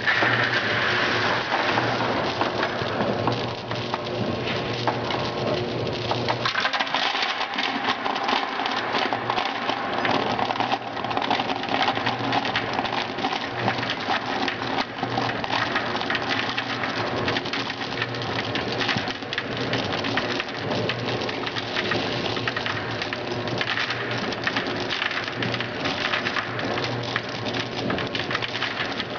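Industrial feeder running with gum pieces. There is a dense, continuous rattle of small hard pieces tumbling against the stainless steel hopper, over a steady machine hum.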